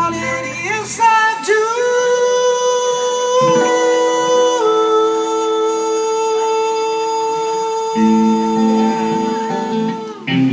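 Blues band music: a lead line holds long, bending notes with little backing, then the band's chords come back in about eight seconds in.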